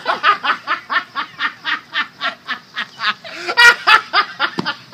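A person laughing hard and without a break, in quick rhythmic bursts of about four a second, with a louder outburst a little past halfway.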